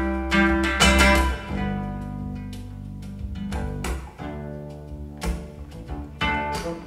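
Instrumental passage of an indie-folk song with no vocals: guitar chords over bass, struck hard in the first second and again near the end, ringing more softly in between.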